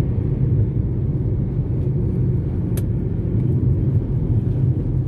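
Steady low rumble of a vehicle in motion, with one sharp click nearly three seconds in.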